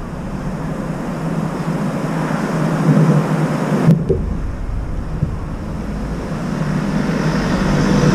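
Steady road-traffic noise with wind rumbling on the microphone, and a single sharp click about four seconds in.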